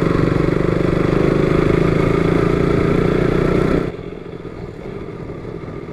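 KTM RC single-cylinder motorcycle engine running steadily at low speed, heard from the rider's seat on a rough dirt road. About four seconds in the engine cuts off abruptly and quieter, ominous background music takes over.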